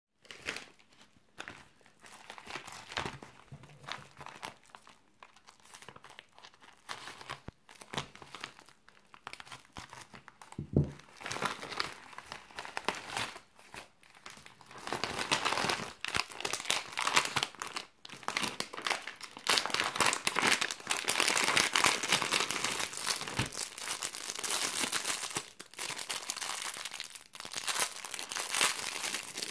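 Plastic mailer envelope and clear plastic packaging crinkling, rustling and tearing as they are handled and opened by hand, growing louder and denser about halfway through, with a single thump about a third of the way in.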